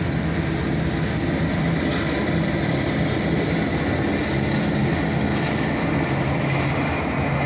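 Oil Creek & Titusville Alco diesel locomotive passing close by, its engine running with a steady low hum over the noise of the moving train.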